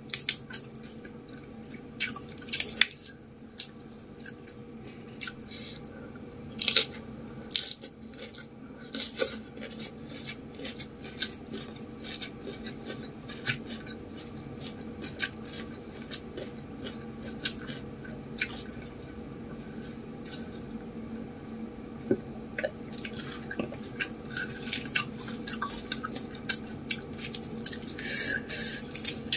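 Close-up eating sounds: chewing mouthfuls of fried rice vermicelli with lettuce, with many short wet mouth clicks and smacks scattered throughout. A faint steady hum runs underneath.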